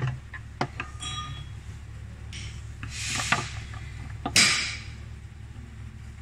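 Hands working a plastic part onto metal fittings in a truck's engine bay: rubbing and scraping with a few clicks, and one sharp, loud scrape about four and a half seconds in. A steady low hum runs underneath.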